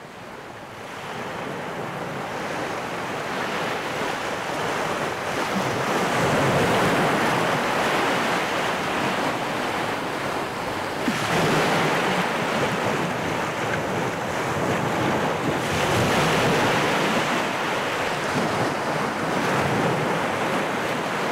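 Ocean surf on the film's soundtrack: a steady rush of breaking waves that fades in over the first few seconds, then swells and eases every few seconds as each wave comes in.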